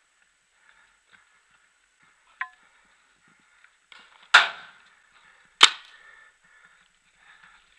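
Paintball marker firing two shots about a second apart, each a sharp crack with a short ring-off, after a light click a couple of seconds earlier.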